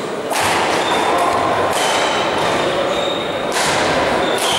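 Sports-hall background noise: a hiss-like rush that starts and stops abruptly in sections, with a few faint steady tones.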